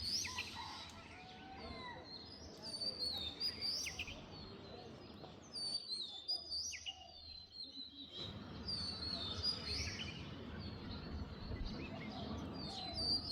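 Small songbirds chirping and singing: many short, repeated notes that fall in pitch, over a low background rumble.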